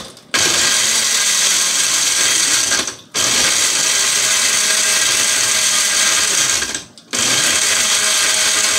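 Countertop blender running as it blends peanut punch with chipped ice. The motor stops briefly twice, about three and seven seconds in, giving three pulses.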